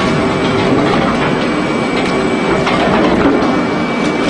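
Industrial shredder running steadily, its hooked cutter discs grinding and crunching animal carcasses, with scattered sharp knocks and a thin steady high whine underneath.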